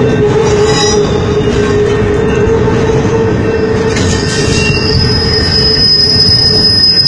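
Circus train's loaded flatcars rolling past close by: a continuous rumble of steel wheels on the rails with a steady ringing tone, and a thin high-pitched wheel squeal joining about five seconds in.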